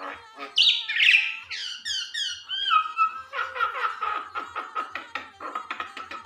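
A talking common myna vocalizing: rising and falling whistled notes in the first half, then a fast run of short, evenly repeated notes on a steady pitch.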